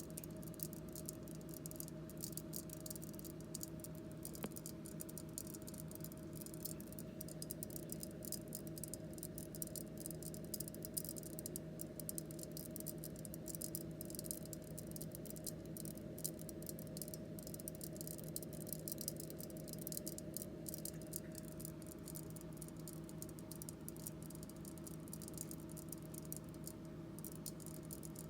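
Rice grains soaking in water, making a fine, continuous crackle of countless tiny pops as they take up water. A steady low refrigerator hum runs underneath.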